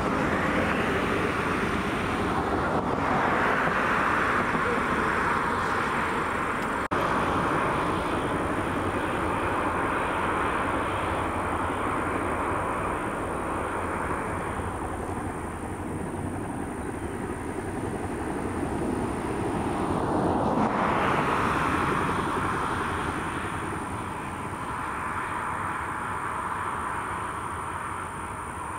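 Boeing CH-47 Chinook helicopter's tandem rotors and twin turboshaft engines running steadily as it taxis, swelling in loudness twice.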